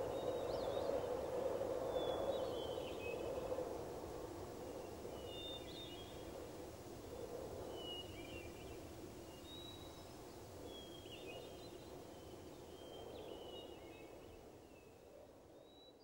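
Outdoor ambience: small birds giving short chirps every second or so over a steady background noise, fading out toward the end.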